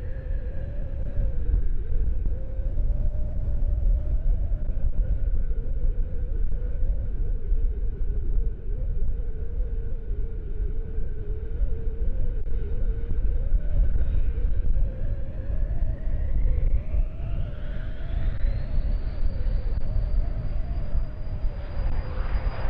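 Cessna Citation 501's twin Pratt & Whitney JT15D turbofan engines whining steadily, then rising sharply in pitch from about fifteen seconds in and holding at a higher whine as they spool up to takeoff power. Heavy wind rumble on the microphone underneath.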